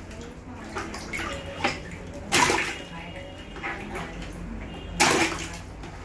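Water sloshing and splashing in a plastic bucket as a hand presses down on floating water-filled balloons, with two louder sharp splashes about two and a half and five seconds in and a few smaller ones between.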